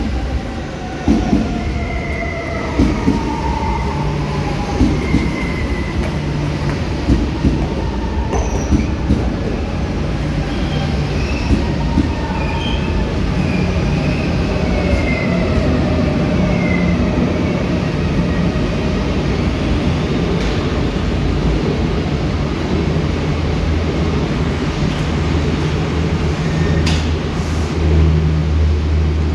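Electric commuter train running past a platform in an underground station: its wheels clack over rail joints and squeal in falling tones during the first half, then settle into a steady rumble. A low hum grows near the end.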